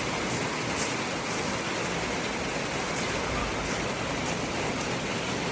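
Heavy rain falling steadily, an even hiss with a few sharper drop ticks.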